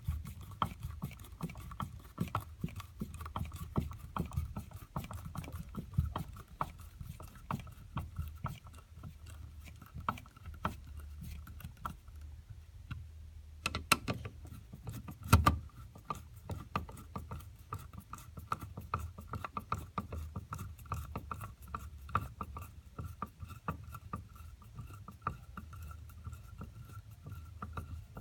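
Screwdriver tightening two small screws: rapid, irregular clicking and rattling, with a short pause about halfway through and a louder knock just after it.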